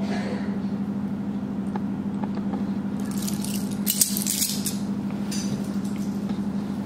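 Gold-plated silver jewellery being handled on a velvet cloth: a cluster of rustling and light metallic clinking about three to four and a half seconds in, sharpest near four seconds. A steady low hum sits underneath.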